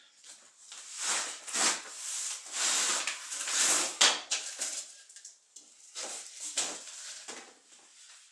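Cardboard shipping box scraping and rustling as it is pulled off a moulded hard-shell guitar case, with a sharp knock about four seconds in, then lighter rustling.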